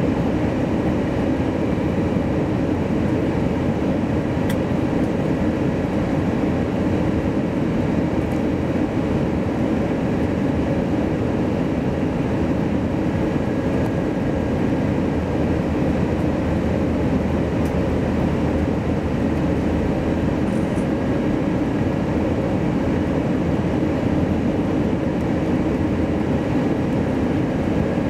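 Steady cabin noise of a jet airliner on final approach, heard from inside the passenger cabin: engines and rushing air, an even low roar that holds level throughout.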